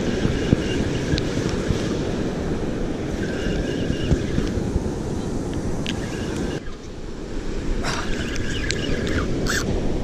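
Heavy wind noise on the microphone over breaking surf, with a spinning reel being cranked in several spells, its gears giving a faint whine, as a hooked fish is reeled in.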